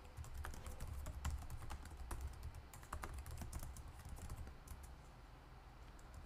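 Typing on a computer keyboard: a quick, irregular run of key clicks over a low hum, thinning out about two-thirds of the way through.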